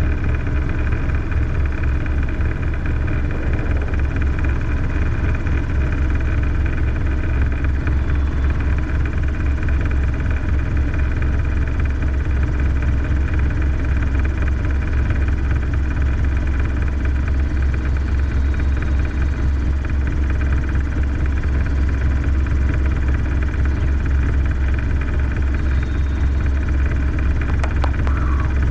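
Robinson R22 helicopter's piston engine and rotor running steadily at climb power during takeoff, heard inside the small cabin as a loud, even drone with a deep rapid flutter. A few faint clicks come near the end.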